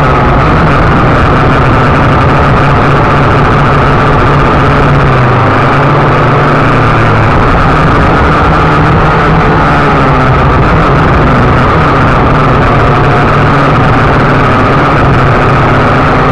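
Syma X8C quadcopter's four motors and propellers buzzing steadily and loudly, heard close up from the drone's own onboard camera while it flies, the pitch shifting slightly about five seconds in.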